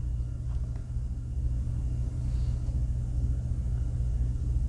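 Steady low background rumble, with a few faint light clicks about half a second in.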